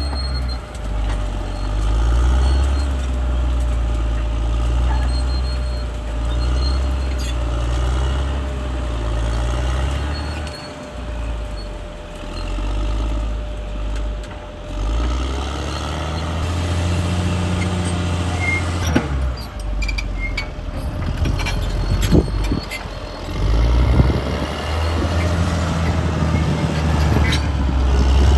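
Caterpillar D6R bulldozer's diesel engine working under changing load, easing off for a few seconds partway through and then pulling hard again, with a faint steady whine. In the second half there is a run of sharp clanks and knocks.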